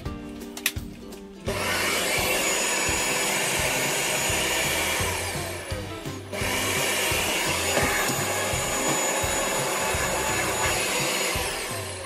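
Dyson Cinetic Big Ball Absolute 2 canister vacuum cleaner running: a steady rushing hiss with a high whine, in two long stretches with a brief break about six seconds in.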